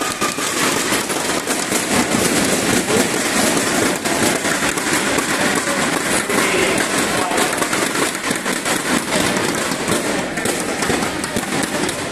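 Crowd of spectators applauding, a dense steady clatter of many hands clapping at once.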